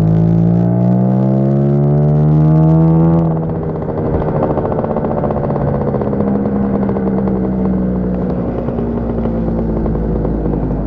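Lambretta scooter's two-stroke single-cylinder engine pulling along with its pitch rising. About three seconds in, the pitch and level drop and it runs on steadily at lower revs.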